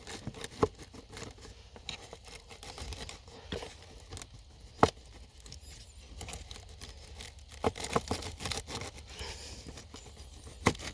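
Cabin air filter being pulled out of its housing: crinkling and scraping of the pleated filter against plastic, with a few sharp clicks and knocks, the loudest about five seconds in.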